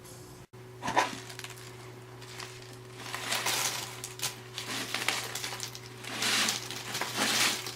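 A sharp knock about a second in, then repeated bursts of crunching and rustling.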